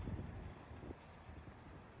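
Faint, uneven low rumble of wind on the microphone over distant traffic.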